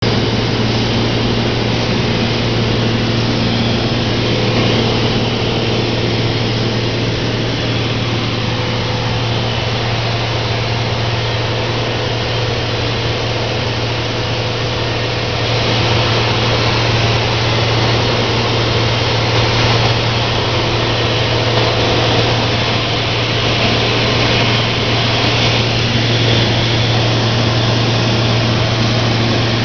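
Steady drone of a high-wing light aircraft's engine and propeller in cruising flight, heard from inside the cabin: a strong constant low hum over an even rush of engine and air noise, a little louder about halfway through.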